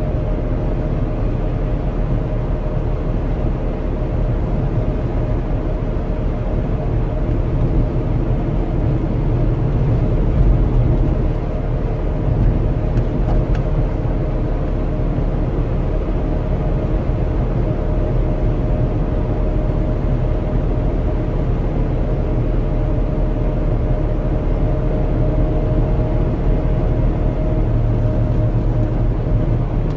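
Trabant 601's two-cylinder two-stroke engine running steadily while the car drives along, heard from inside the cabin over low road rumble.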